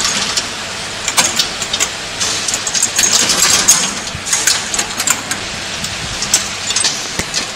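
Steel roller chain of a Z-type bucket elevator rattling and clinking against its sprocket as it is pulled and turned by hand. It makes an irregular run of metallic clicks and clatter, busiest in the middle. The chain is being seated a tooth on the sprocket to bring the two chains parallel.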